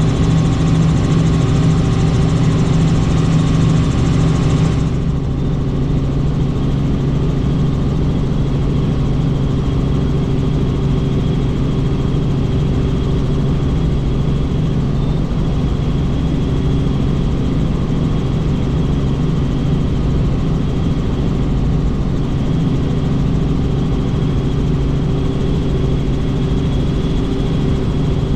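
Helicopter in flight: the steady, loud drone of its engine and rotor, several steady tones held under a hiss. About five seconds in the sound changes abruptly, the higher hiss dropping away, then the drone continues evenly.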